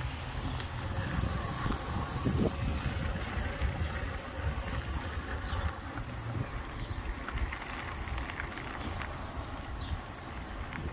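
1946 Shelby bicycle rolling along pavement, with wind buffeting the microphone as a steady low rumble and a few light clicks and rattles from the bike.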